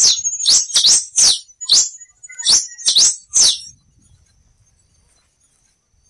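Black-and-rufous warbling finch (quem-te-vestiu) singing: a run of quick, sharp, high whistled notes, each sweeping up or down, that stops a little past halfway. A faint steady high-pitched tone runs underneath.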